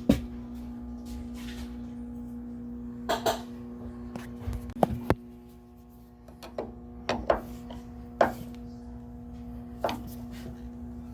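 Scattered short knocks and clicks of hands and tools handling metal parts on an old gas water heater, about ten in all, over a steady low hum.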